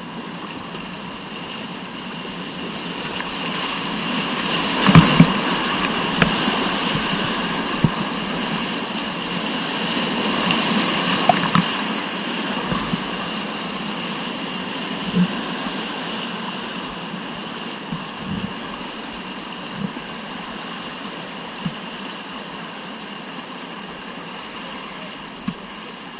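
Rushing whitewater of a mountain-river rapid, a steady wash that swells for several seconds after the start and slowly fades after the middle. A few single sharp knocks or splashes stand out, the loudest two together about five seconds in.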